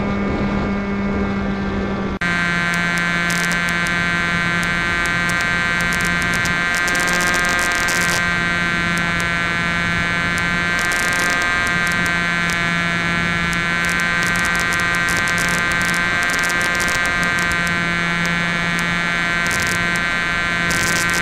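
Small electric motor and propeller of an RC model plane, heard from a camera on board, running as a steady buzzing drone in flight. The pitch drops slightly at a cut about two seconds in, then wavers a little up and down, with hiss and crackle from wind on the camera's microphone.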